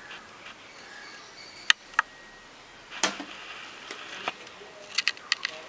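A plastic puzzle cube being turned by hand, giving irregular sharp clicks: a few spread apart, then a quick run of several near the end.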